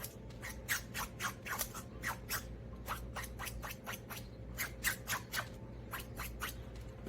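A hand blade making a quick series of short, crisp cutting strokes, about two to four a second in irregular runs, over a steady low hum.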